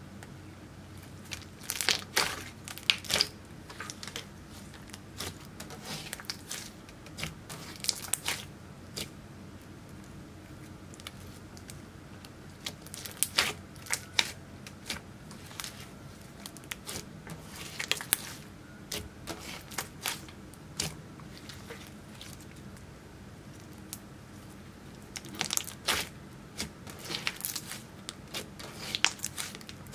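Thick glossy slime, clear slime mixed with eyeshadow, being stretched, squeezed and folded by hand, giving clusters of sticky crackles and pops every few seconds.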